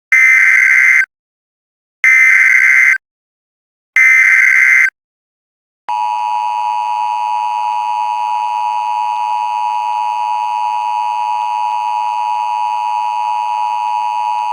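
Emergency Alert System broadcast tones: three one-second bursts of SAME header data about two seconds apart, then, about six seconds in, the steady two-tone EAS attention signal begins and holds.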